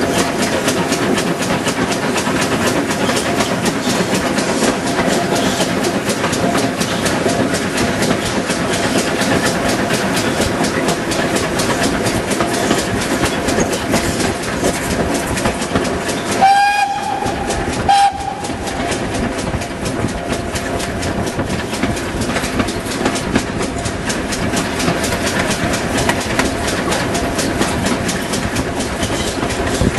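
Railway carriage running along the line, with the steady rumble and clickety-clack of the wheels on the track. A short whistle sounds about halfway through.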